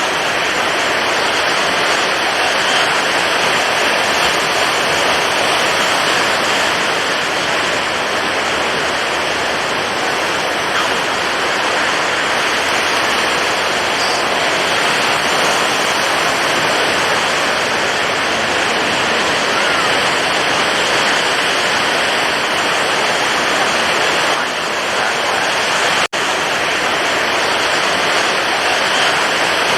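Stormy ocean surf: high waves breaking, a loud, steady, dense wash of rushing water with no distinct separate breakers. The sound cuts out for an instant a few seconds before the end.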